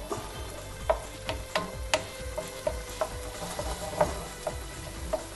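Onions, tomatoes and peppers sizzling in oil in a wok, with a wooden spatula stirring them and knocking irregularly against the pan.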